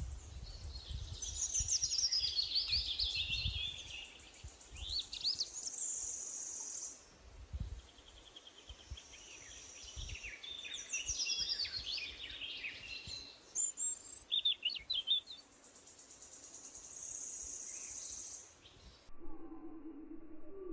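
Wild birds chirping and trilling in quick, varied phrases, over a high insect buzz that comes and goes, with a low rumble beneath.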